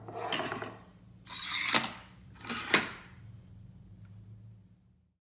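Fly reel's click-check ratchet buzzing in three short runs as the spool is spun, over a low steady hum.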